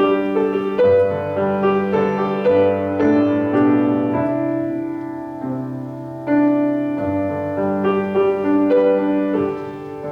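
Piano or electric keyboard playing a slow, gentle instrumental interlude of sustained chords and a simple melody, with no singing.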